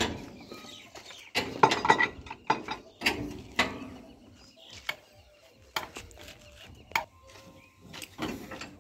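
Irregular metallic clanks and clicks of hand tools on metal: a long-handled wheel brace turning the wheel nuts of a combine harvester's large front wheel.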